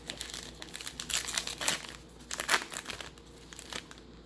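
The wrapper of a 2019 Topps Archives baseball card pack being torn open and crinkled in the hands, in irregular crackles that are loudest in the middle.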